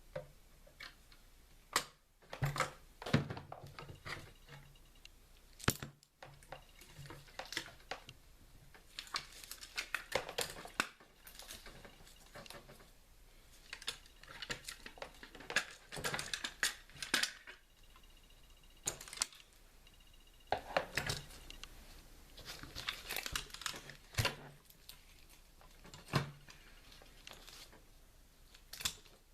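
Irregular handling sounds of small hard objects: scattered sharp clicks and knocks with stretches of rustling.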